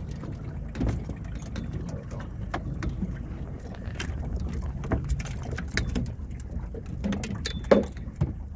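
A boat's motor running steadily low underneath, with scattered knocks, clicks and clatter as a landing net holding a freshly caught coho salmon is handled; a sharp knock stands out near the end.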